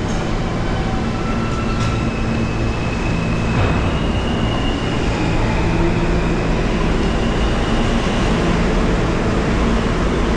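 New York City subway trains at an underground station platform: a steady rumble and hum, with a faint high whine in the first half.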